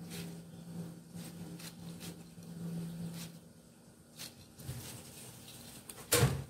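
Kitchen knife cutting into a peeled pineapple on a wooden cutting board: a series of short, crisp cuts, with a sharper knock near the end. A low steady hum runs under the first half.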